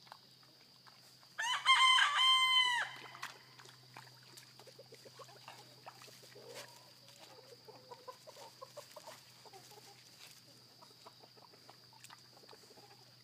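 A chicken crows once, loud and about a second and a half long, the last note held and then dropping. Faint low clucking follows for a few seconds.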